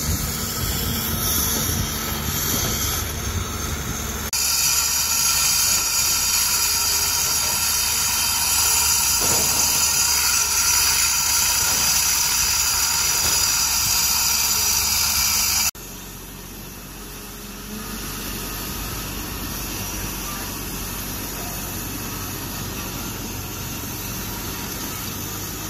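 A hydraulic excavator's diesel engine running. About four seconds in, it changes abruptly to a louder, hissing power tool cutting away concrete at a pile head. After a sudden drop in level about sixteen seconds in, a quieter excavator engine runs steadily.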